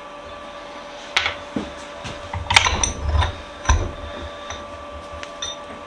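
Metal knocks and clinks of cast-iron bench vise parts being handled during disassembly: a few separate knocks, a busier cluster of clinks about two and a half seconds in, then a few light ticks. A steady hum runs underneath.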